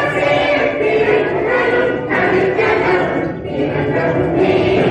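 A large group of children singing a prayer together in unison, in phrases that break every second or so.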